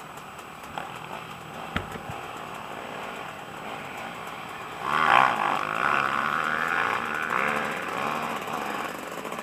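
Dirt bike engines running at a race start; about five seconds in a nearby bike's engine comes in much louder, its revs rising and falling as it moves up. A single sharp click sounds about two seconds in.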